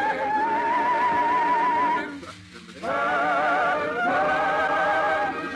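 Slow organ music: long held chords with a wavering vibrato, broken by a short pause about two seconds in.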